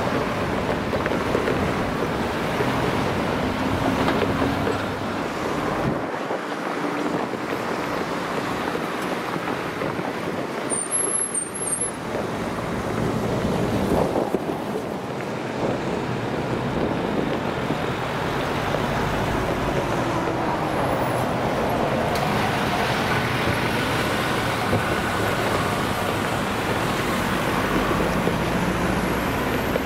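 Steady road traffic noise from cars and trucks driving past.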